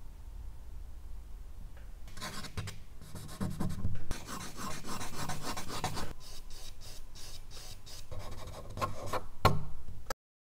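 Charcoal scratching and rubbing across medium-surface drawing paper in quick repeated strokes. It starts about two seconds in and is cut off suddenly near the end.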